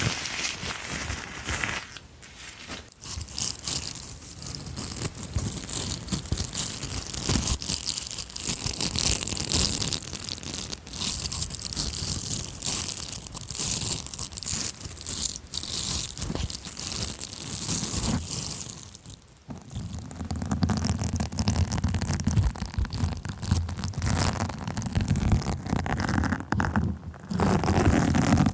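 Close-miked ASMR handling of an object: dense crinkling and crackling with many quick taps and scratches, briefly dipping before turning more muffled in the last third.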